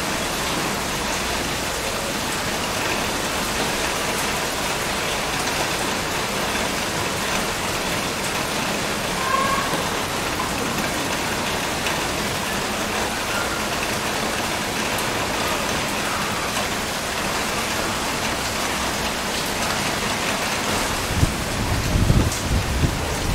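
Heavy rain falling steadily. Near the end, a few low thumps stand out above the rain.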